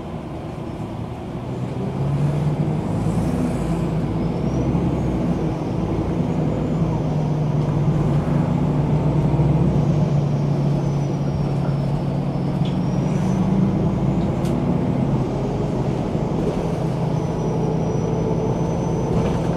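MAN NG 313 articulated city bus's diesel engine running, getting louder about two seconds in and then holding a steady drone, with a faint high whine rising and falling above it.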